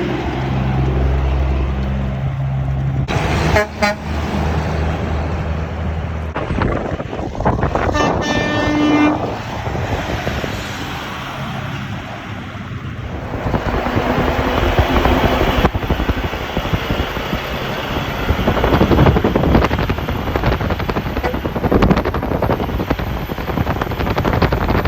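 Road traffic with trucks driving past, and a short horn toot about eight seconds in. The traffic noise grows louder from about halfway through.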